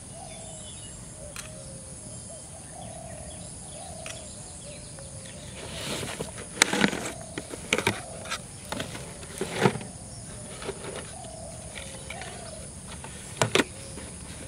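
Handling knocks and clatters of a plastic jar and a steel plate, bunched about halfway through with another couple near the end, over faint bird calls in the background.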